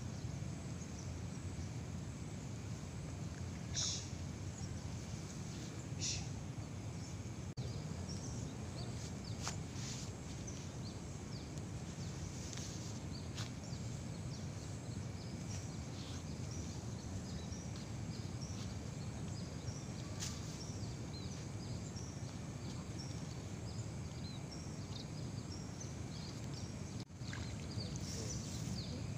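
Outdoor ambience: a steady low background rumble with many short, high chirps from small animals throughout, and a few faint clicks.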